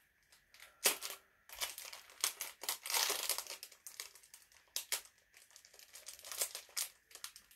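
Packaging of a set of under-eye patches being handled and opened by hand: irregular crinkling and rustling, with a sharp crackle about a second in and a busier stretch of crinkling around three seconds.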